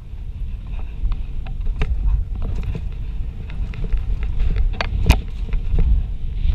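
Mountain bike descending a dirt forest trail, heard from a handlebar-mounted camera: wind buffets the microphone with a steady low rumble, and the bike clicks and rattles over the bumps, with the sharpest knock about five seconds in.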